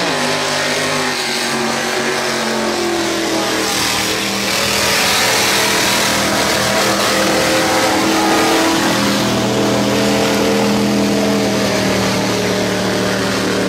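Mud truck's engine revving hard as it plows through a mud bog pit, its pitch climbing over the first few seconds and then held at high revs, with a hiss of mud spray over it.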